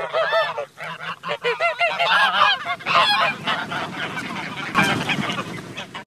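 Canada goose honking in a rapid run of short calls, several a second, thinning out after about three seconds, with a brief knock about five seconds in.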